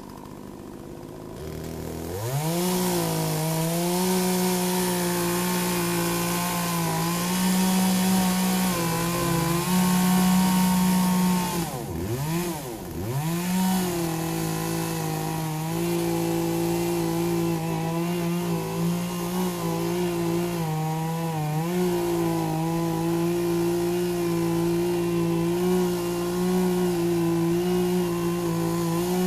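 Poulan 18-inch two-stroke gas chainsaw running at high revs, cutting into a tree stump. The engine drops to a low idle at the start and revs back up about two seconds in. Its pitch sags and recovers under load, with two sharp dips about twelve seconds in.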